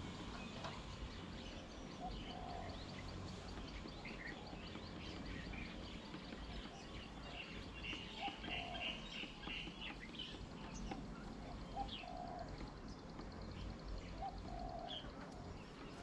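Wild birds calling: a short low two-part call repeats about every three seconds, and a quick run of higher chirps comes in around the middle, over a steady low background rumble.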